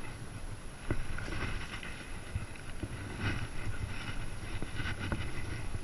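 Wind buffeting the microphone, with water splashing as a hooked bass thrashes at the surface and a few sharp knocks.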